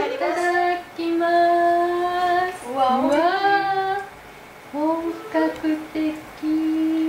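A woman's voice singing long held notes, with rising slides between them and a short pause a little after halfway.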